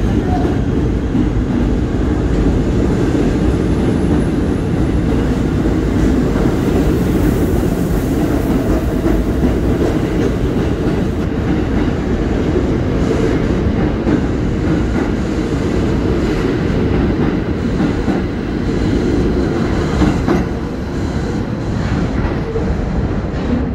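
R46 subway train pulling out of an underground station: a steady, loud rumble of steel wheels on the rails as the cars roll past, with wheel clicks over the rail joints standing out more in the second half.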